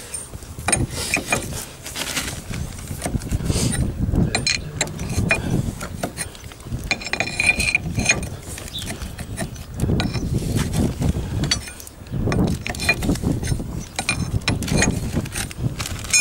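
Metal clinks and scrapes of wrenches and steel parts being handled on a hydraulic steering cylinder's piston and rod, many separate sharp clicks, with gusts of wind rumbling on the microphone.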